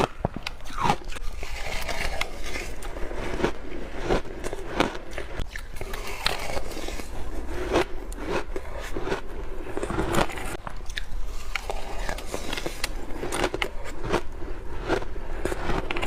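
Frozen passion fruit ice being bitten, a dense, irregular run of sharp crackling crunches.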